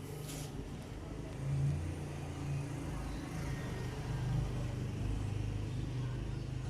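Steady low engine rumble, like a motor vehicle running nearby, swelling slightly a couple of times.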